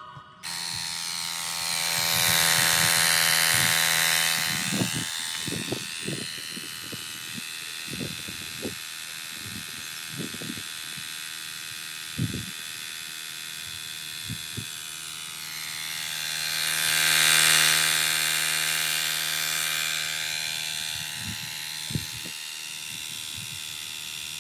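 Xiaomi Mi Portable Electric Air Compressor 1S running while it inflates a bicycle's rear tyre: a steady motor and piston hum that starts about half a second in. It grows louder for a few seconds twice, and there are a few short knocks.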